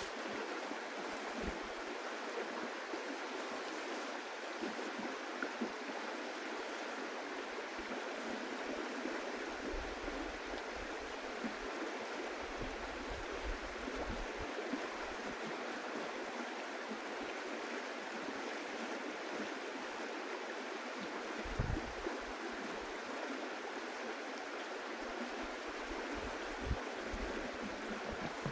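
River water rushing steadily, an even hiss of flowing water throughout, with a few brief low thumps, the strongest about two-thirds of the way in.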